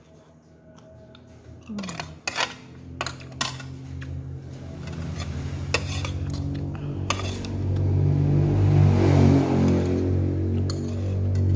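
Metal spoon and fork clinking and scraping on a tray as the last food is scooped up, under a low hum that swells louder through the second half.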